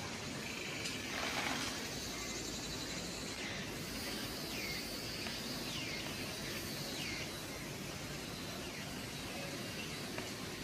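Outdoor ambience: a steady background hiss with a series of short, falling bird chirps over a few seconds in the middle, and one brief louder burst of noise just over a second in.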